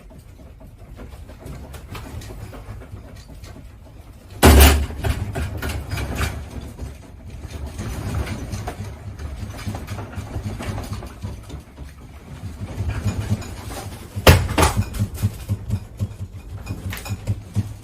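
A low, continuous rumble with constant rattling and clattering, typical of a building and its contents shaking in an earthquake. There are two loud bangs, one about four seconds in and another near the end, each followed by heavier rattling.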